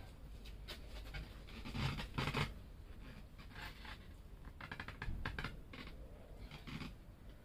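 Hand tools working on the motorcycle's mounting bolts: metal scrapes and knocks, loudest about two seconds in, with a quick run of clicks about five seconds in.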